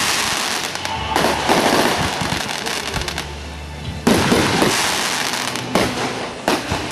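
Fireworks going off: sharp bursts about a second in, about four seconds in and twice more near the end, each trailing off into crackling, with music playing underneath.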